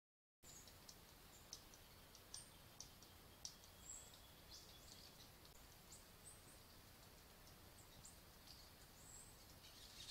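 Faint forest ambience: scattered short high ticks and brief chirps over a steady low hiss.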